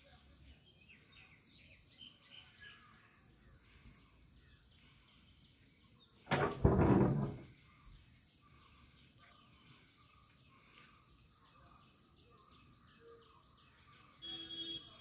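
Quiet open-air ambience with faint scattered bird chirps, broken about six seconds in by a loud noise lasting about a second, and a short pitched sound near the end.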